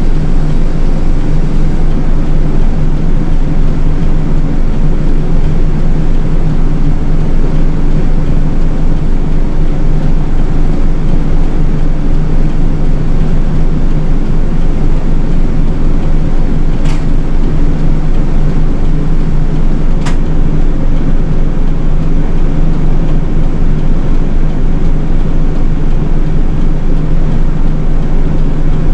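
City bus engine and road noise heard from inside the cabin, a steady running drone with a low hum. Two short clicks come past the middle, about three seconds apart.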